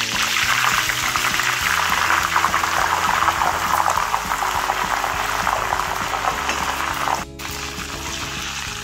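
Fresh curry leaves sizzling and crackling hard as they deep-fry in hot oil, stirred in the pan. The sizzle drops out briefly about seven seconds in, then continues a little quieter.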